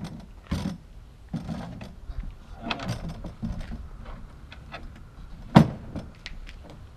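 Knocks and metallic clunks as a small vintage single-seater race car is pushed by hand over a metal car-trailer ramp, with one sharp, loud bang about five and a half seconds in.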